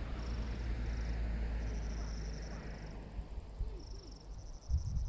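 Crickets chirping in short trilled bursts with gaps between, over a low rumble that fades after about three seconds. A few low thumps come near the end.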